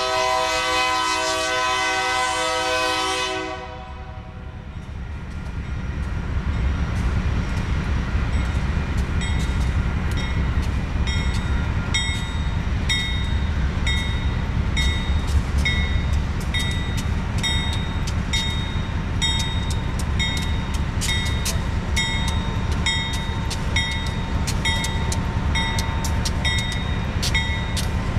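A Union Pacific AC4400CW locomotive's air horn holds a long chord that cuts off about three seconds in. After it, the rumble of the approaching diesel locomotives grows louder. From about nine seconds in, a bell rings roughly once a second.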